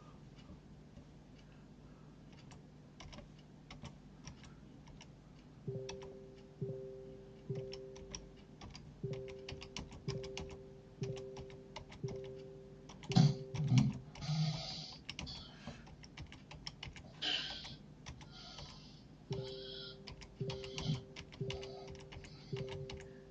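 Computer keyboard typing: a scattered patter of key clicks. A repeating electronic two-tone beep pulses about once a second from about six seconds in for several seconds, then again near the end, and a few louder breathy bursts come about thirteen and seventeen seconds in.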